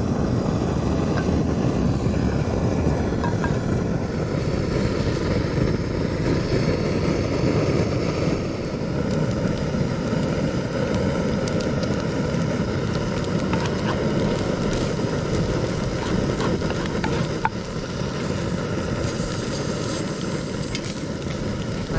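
Strong wind buffeting the microphone: a steady, rumbling roar with a few faint clicks over it.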